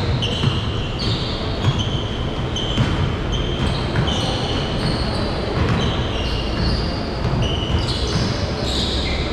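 Pickup basketball on a hardwood court in a large gym: many short, high sneaker squeaks at shifting pitches and a ball bouncing, over a steady low rumble of the hall.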